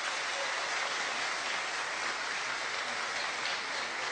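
Large crowd applauding, a steady, even round of clapping.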